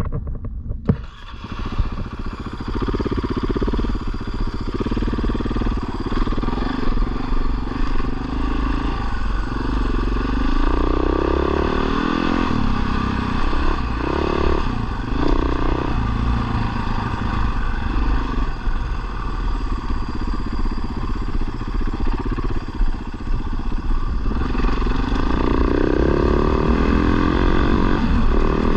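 Off-road motorcycle engine running from about a second in and carrying the bike along a rough dirt track, its revs rising and falling again and again.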